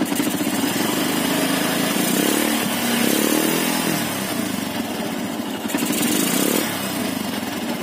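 Yamaha Byson's single-cylinder four-stroke engine running, heard close to its exhaust. It is revved up about two seconds in and falls back, with a shorter throttle blip about six seconds in.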